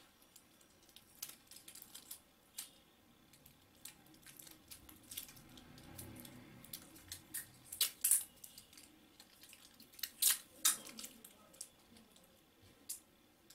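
Close handling of clear adhesive tape, a coin cell battery and thin wires: scattered small clicks and crinkles, with a few louder rasps of tape pulled from the roll about 8 and 10 seconds in.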